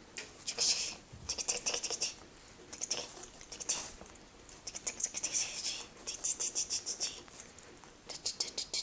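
Scratching and scrabbling on a woven cotton rag rug on a tiled floor, in about six short bursts of quick scrapes with brief pauses between them, as a cat paws at the rug.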